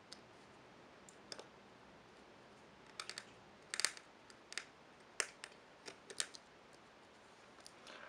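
Faint, irregular light clicks and taps of a small precision screwdriver on a tiny screw and the metal parts of an opened Samsung Galaxy S3's logic board as the board screw is driven back in. The clicks are sparse at first and come thicker from about three seconds in.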